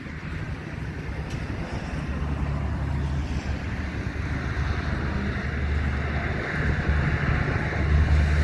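Highway traffic on the bridge: a low vehicle rumble that grows louder toward the end as traffic comes closer, with wind buffeting the microphone.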